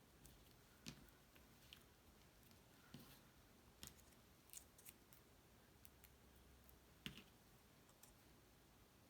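Faint, scattered snips and clicks of scissors cutting small squares from a roll of foam tape, irregularly spaced, the sharpest about seven seconds in.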